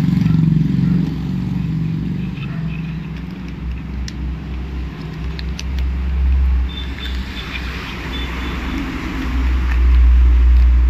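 Motor vehicle engine rumble, steady and low, rising and falling, loudest about six seconds in and again near the end. A few light clicks of handling sound over it.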